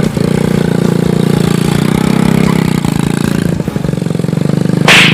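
Small motor scooter engine running and pulling away, with a steady engine note that dips briefly about three and a half seconds in. A short loud burst of noise comes near the end.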